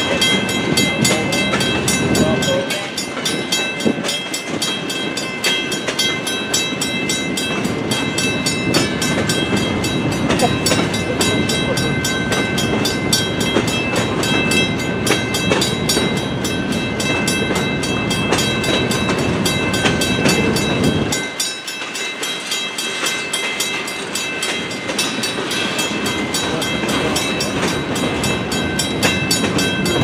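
Freight cars of a CN train rolling past: a steady rumble of steel wheels on rail, with several high, steady ringing tones over it.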